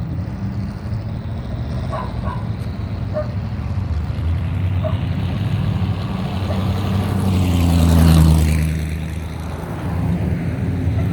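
Loud-exhaust cars driving slowly past with their engines rumbling. One passes close about eight seconds in, getting louder and then dropping in pitch as it goes by.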